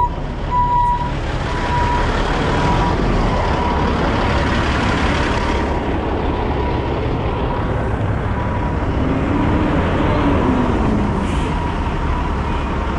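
Heavy diesel trucks running close by: a steady engine rumble and road noise, with a thin high whine throughout and a brief low rising-then-falling tone near the end.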